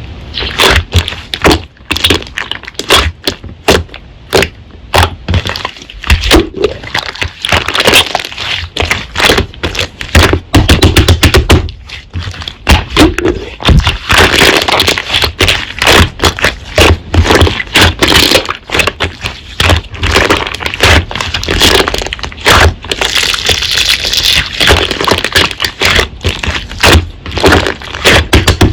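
Slime being squished and pressed by hand, giving a dense, irregular run of loud crackling pops and clicks.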